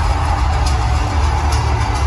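Loud music with a heavy bass, played over an arena's sound system.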